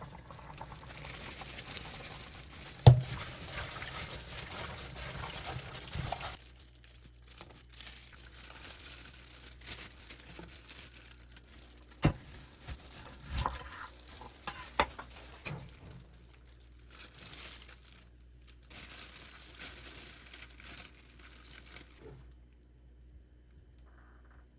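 Kitchen food-preparation sounds: rustling and crinkling for the first six seconds, with one sharp knock about three seconds in, then a few scattered knocks and clinks, with quieter handling between them.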